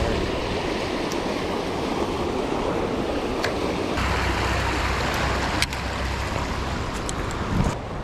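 Shallow river water rushing over rocks in a riffle, a steady wash of water noise, with a low rumble joining about halfway through and a few short, sharp clicks.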